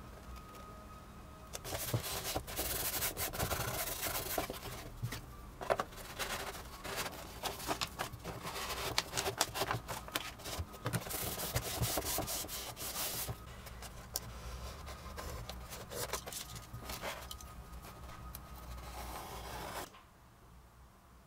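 Self-adhesive vinyl foil being peeled from its backing paper and rubbed down onto a foam boat hull: irregular rubbing, scraping and crinkling with small clicks, dropping away near the end.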